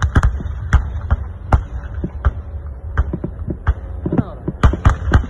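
Military cannon firing: sharp bangs in quick, irregular succession, about three a second, over a steady low rumble.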